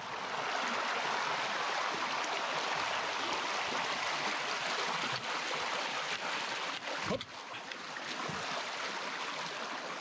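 A stream flowing, a steady even rush of water. A brief pitched sound rises and falls about seven seconds in.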